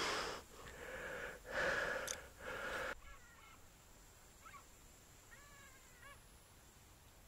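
A few loud breathy rushes close to the microphone in the first three seconds, then gulls calling faintly in the distance: several short, bending cries.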